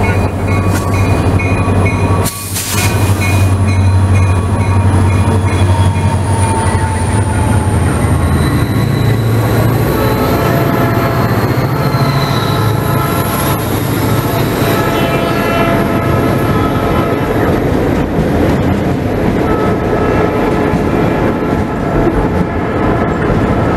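Ferromex EMD GP40-2 diesel locomotives pass close by, their engines running with a strong low hum for the first eight seconds or so. Then freight cars roll past, a steady noise of wheels on rail.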